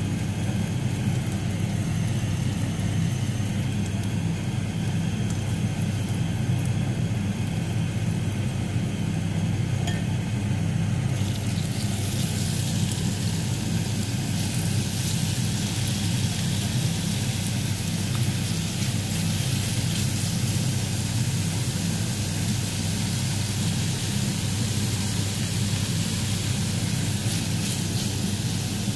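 Steady low hum throughout. About eleven seconds in, a loud sizzling hiss starts and keeps going as raw marinated chicken tocino strips fry in hot oil in a nonstick frying pan.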